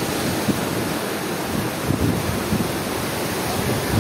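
Storm surf on the Black Sea making a steady rush, mixed with wind buffeting the microphone.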